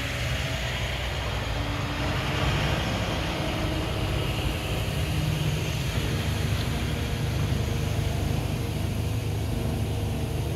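Mack front loader garbage truck's engine idling with a steady low rumble.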